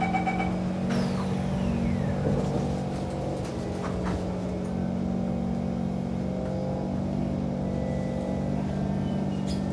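Kawasaki C151 electric train pulling away, heard from inside the carriage: a steady hum and whine from the traction motors as it gathers speed. About a second in, a high tone falls steadily in pitch, and other held tones shift later on.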